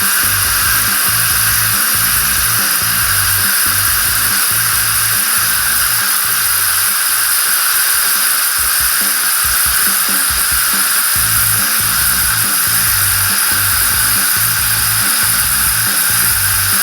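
Background music with a steady beat, over a steady hiss from a Philips 3200 LatteGo espresso machine frothing milk.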